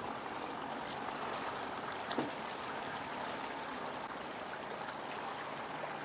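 Steady rushing of river water around the boats, with one faint knock about two seconds in.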